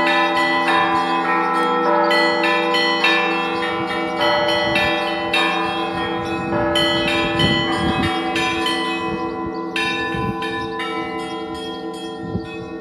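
Church bells ringing together: quick, rhythmic strikes on smaller, higher bells over the lingering hum of larger, deeper bells. The strikes thin out and the ringing dies away over the last few seconds.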